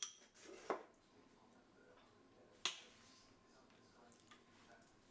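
A metal spoon clinks against a glass mixing bowl with a short ring. A duller knock follows, then a sharp single click a couple of seconds later, as bowl and utensil are handled on a kitchen counter.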